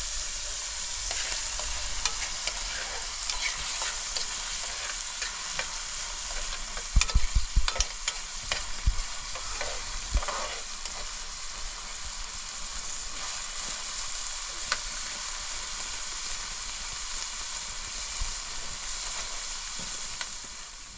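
Food sizzling in a pan, a steady frying hiss. A few louder knocks come about seven to eight seconds in and again near ten seconds.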